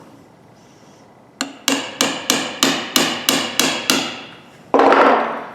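A hammer striking rust-seized steel pliers held in a vise, about nine sharp ringing metal-on-metal blows at roughly three a second, to free the frozen joint. A brief, loud rushing noise follows near the end.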